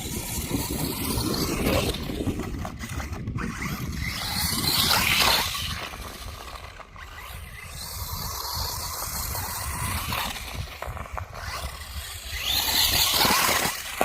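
Electric radio-controlled truck driven hard over rough ground: tyres scrabbling and scraping with a faint motor whine, louder in two surges, about five seconds in and near the end, with wind buffeting the microphone.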